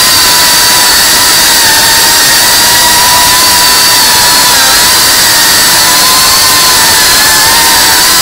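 Cinewhoop FPV drone's motors and ducted propellers whining steadily over a rushing hiss, the pitch wavering slightly with throttle changes.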